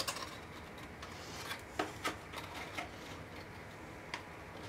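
Cardstock paper pieces handled and pressed together by hand: a few scattered light clicks and paper taps over faint room noise.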